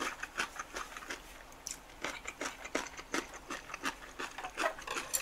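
A person chewing food close to the microphone: irregular mouth smacks and clicks, several a second.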